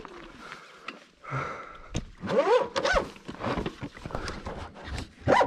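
Sur-Ron electric dirt bike's motor whining up in short bursts of throttle while the primary drive belt slips and skips teeth with sharp clicks and knocks: the belt is stripped.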